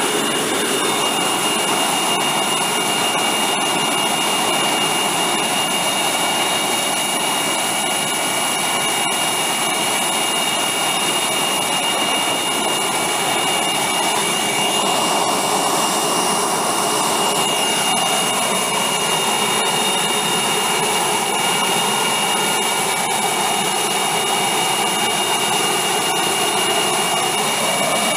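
The F-22 Raptor's twin Pratt & Whitney F119 turbofans idling on the ground: a steady jet rush with several high, steady turbine whines over it.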